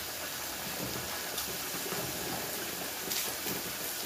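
Pork belly (liempo) sizzling steadily on an electric tabletop grill, with a few faint clicks about three seconds in.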